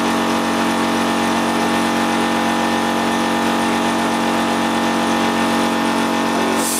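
New Warrior high-pressure air compressor running steadily under load while filling an air tank towards about 285 bar: a steady motor-and-pump hum over a broad hiss. The hiss grows brighter at the very end.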